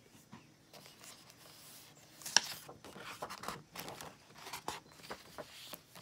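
Paper rustling and soft clicks as a page of a picture book is turned by hand and the book is pressed open, with one sharper tap about two seconds in.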